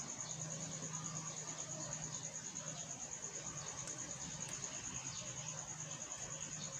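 Cricket trilling steadily: a high, evenly pulsed chirp that never lets up, over a faint low hum.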